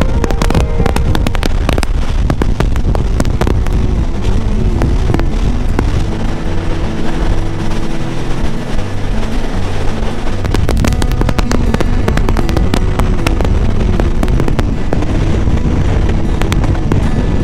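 Background music with a bass line, over the running noise of a passenger train at speed: a dense, irregular clatter of wheels on the rails with rushing air.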